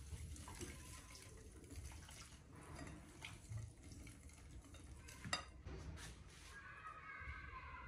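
Faint stirring of a stainless steel wire whisk through runny flour batter in a glass bowl, with soft knocks of the whisk against the glass. About five seconds in there is one sharp clink as the whisk is laid to rest against the bowl.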